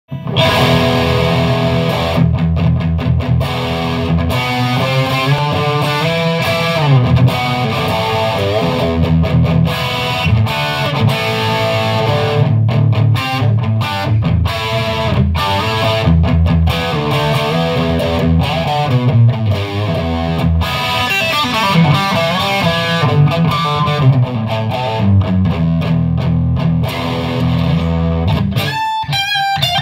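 A 1981 Aria Pro II CS-350 electric guitar played through an amplifier, running through riffs and chords. Near the end the low chords drop away and single notes take over.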